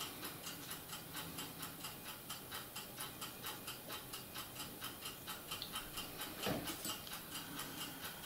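Faint, steady ticking at about four ticks a second, with one soft low thump about six and a half seconds in.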